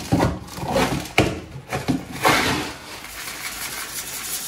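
Metal scoop digging and scraping through clumping cat litter in a plastic litter box, with a paper bag rustling. The scrapes come in irregular bursts, then settle into a softer, steady sifting hiss near the end.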